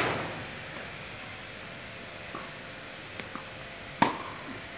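Tennis ball struck hard by a racket about four seconds in, one sharp crack, after a few faint knocks of play further off. The tail of an earlier loud burst fades out at the start.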